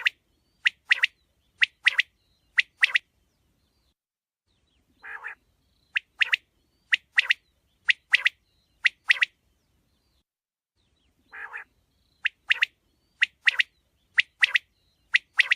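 A quail calling in three repeated bouts. Each bout opens with a short, low, rasping note, followed by about four quick pairs of sharp, high chirps, with a few seconds of silence between bouts.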